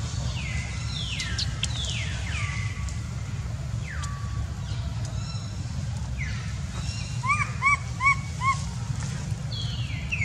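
High-pitched animal calls, each gliding down in pitch, repeated every second or two. About two-thirds of the way through comes a quick run of four short chirps. A steady low rumble lies underneath throughout.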